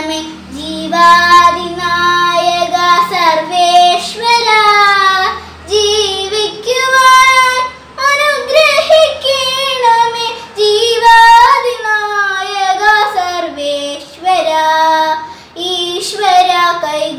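A young girl singing solo with no accompaniment, in long held notes that waver slightly, phrase after phrase with short breaths between.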